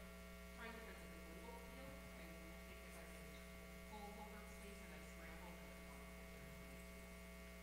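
Near silence with a steady electrical mains hum. A faint, distant voice can be heard now and then.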